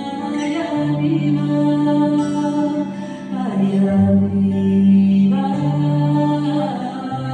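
Slow live music of long held notes that shift every second or two, with wordless singing and a brief downward vocal slide about halfway through.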